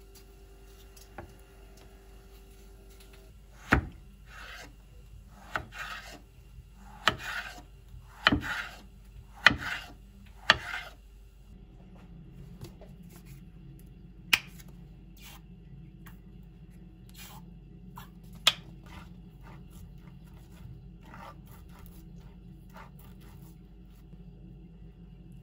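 A run of sharp knocks, each followed by a short rubbing scrape, then a few scattered clicks later on.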